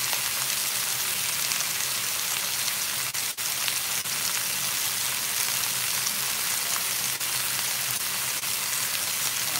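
Chunks of beef searing in a skillet on high heat (set to 400), sizzling steadily, with a few faint pops and a brief dip in the sizzle about three seconds in.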